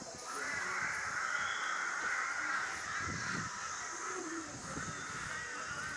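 Several crows cawing, their calls overlapping into a near-continuous chorus that starts a moment in, over a steady high hiss.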